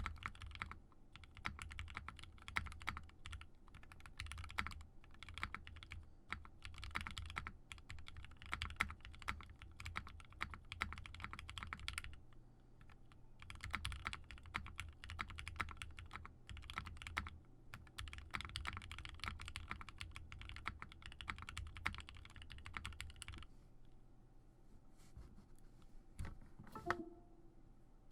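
Typing on a Singa Unikorn mechanical keyboard with lubed 55g Gateron Ink linear switches on a polycarbonate plate: rapid, continuous keystrokes with two short pauses, one near the middle and one near the end. A single knock with a brief ring comes near the end.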